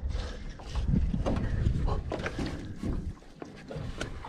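Wind buffeting the microphone in an uneven low rumble that eases about three seconds in, with scattered knocks and clicks around the jon boat.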